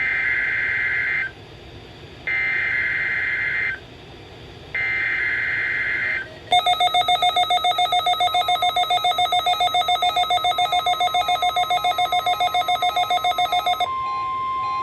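Three bursts of the EAS SAME header, the harsh digital data warble that a NOAA Weather Radio transmitter sends to start a Required Weekly Test. After the third burst, weather radios and EAS equipment go off with a loud, rapidly pulsing alarm of mixed beeps, about five a second. The beeping stops near the end, leaving a steady single tone, the NOAA 1050 Hz warning alarm tone.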